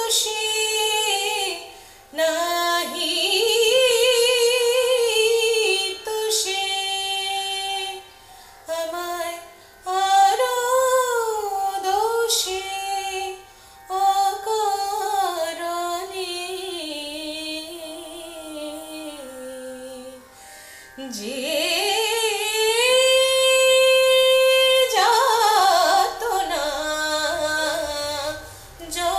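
A woman singing an old Bengali tappa in raga Sindhu Bhairavi, her voice gliding through quick ornamented turns. She holds one long steady note about two-thirds of the way through.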